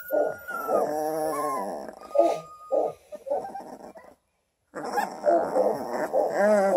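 Two-week-old coonhound cross puppies squeaking and whimpering, a string of short wavering high cries one after another. The sound cuts out completely for about half a second a little past the middle.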